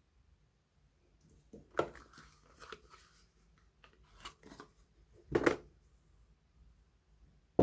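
Soap bars and their paper or card packaging being handled: a few soft knocks and brief rustles, the loudest knock a little past the middle, ending with a sharp click.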